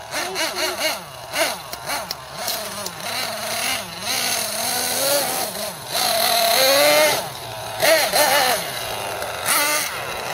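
Nitro RC monster truck's small glow engine running under throttle, its pitch rising and falling again and again as the truck is driven.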